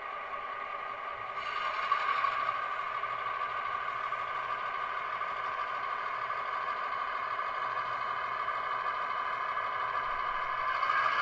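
HO-scale model train running along the track: a steady mechanical running noise of wheels and mechanism with light clatter, growing louder about a second and a half in.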